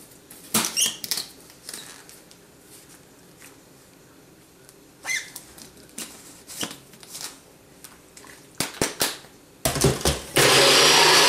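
Scattered clicks and knocks as a Nutribullet cup is handled and its blade base screwed on. Near the end the cup is set on the motor base and the Nutribullet starts blending ice and liquid with a loud, steady whir.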